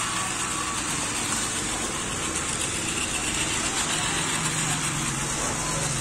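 Battery-powered toy trains, a Chuggington Koko among them, running together on a plastic track set: a steady whir of small motors and wheels on the track.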